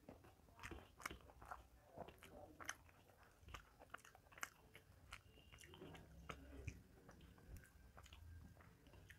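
Faint chewing of rice and fried vegetables eaten by hand, with scattered soft mouth clicks at an irregular pace.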